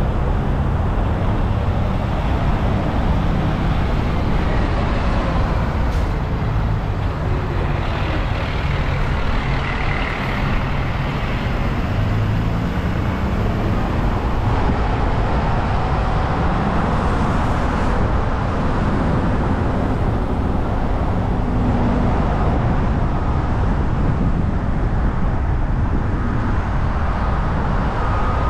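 Steady road and traffic noise from a car driving on city roads, a dense rumble of engine and tyres. Faint repeated high beeps come in near the end.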